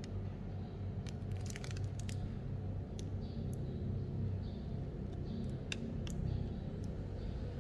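Plastic piping bag crinkling and choux dough squishing as the bag is squeezed, with scattered light clicks, over a steady low hum.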